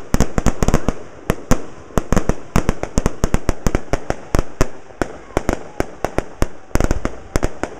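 Fireworks going off in quick succession: an irregular string of sharp bangs, several a second.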